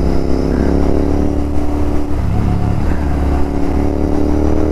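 Royal Enfield Continental GT 650's 648 cc parallel-twin running at a steady cruising pitch through Red Rooster aftermarket exhausts, with a brief dip in pitch a little over two seconds in.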